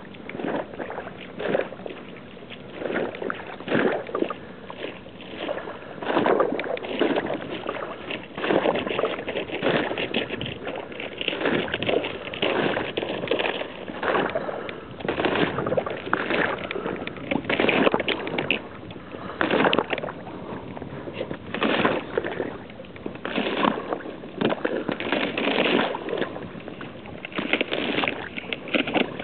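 Footsteps crunching and splashing through a thin-iced, slushy frozen puddle and snow, in irregular steps about once a second.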